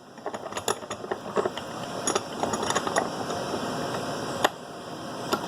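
Small metal clicks and rattles of an XLR connector being set in a bench vise and the vise clamped gently, with one sharper click near the end. Underneath runs the steady noise of two broadcast transmitters running in the shop.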